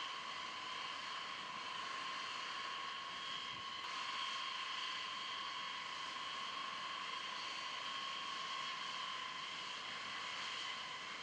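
Steady high-pitched jet turbine whine over a hiss of engine noise, holding an even pitch with no rise or fall.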